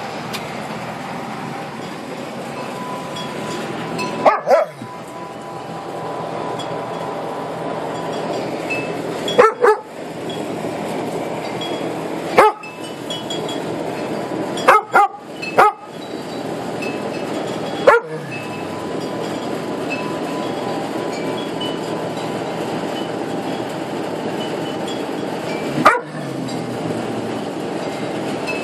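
Dogs barking in short single barks during rough play, about ten in all, scattered, some in quick pairs or threes, over a steady background hiss.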